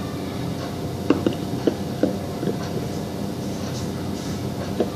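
Slime being squished and pulled apart in the hands: a handful of short, soft, sticky clicks over a steady background hum.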